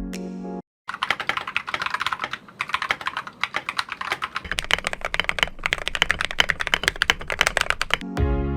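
Fast, continuous typing on a custom TM680 mechanical keyboard with AKKO Rose Red linear switches lubed with Krytox 205g0, PBT XDA keycaps and a plastic case damped with foam and masking tape. The typing starts about a second in and stops near the end as music comes back.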